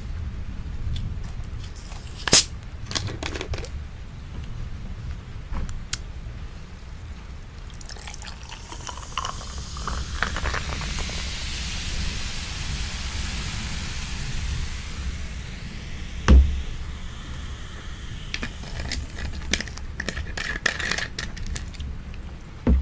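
Coca-Cola poured from a plastic bottle over ice into a glass, fizzing for several seconds. A sharp click comes about two seconds in, and a heavy knock about sixteen seconds in, with small clicks near the end.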